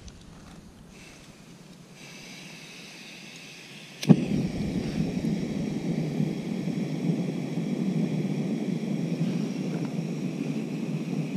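Jetboil canister gas stove being relit: gas hisses faintly, then about four seconds in the burner lights with a sharp click and runs with a steady, loud roaring hiss until it stops at the very end. The pot is being brought back to the boil.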